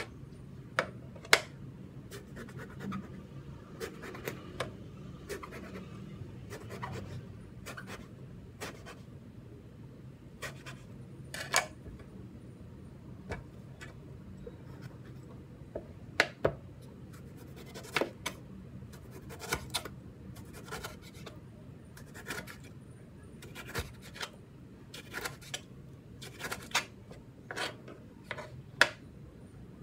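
Kitchen knife slicing vegetables on a plastic cutting board: irregular sharp taps and knocks of the blade reaching the board, some in quick runs, with faint scraping between them.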